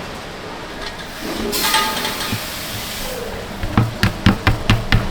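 A brief hiss partway through, then a run of sharp knocks, about three a second, near the end.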